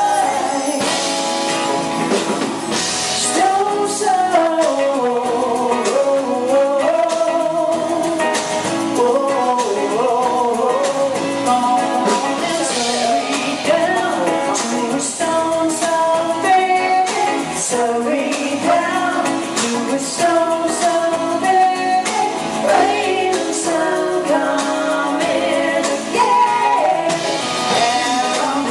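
Live pop band playing a song, with a woman singing the lead melody over guitar and drums.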